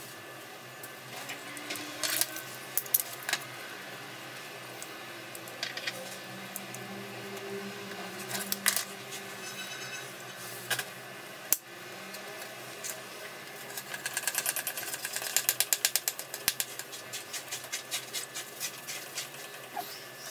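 Paracord being handled on a cutting mat: rustling with scattered sharp clicks and knocks, and a quick run of rapid clicks about fourteen seconds in.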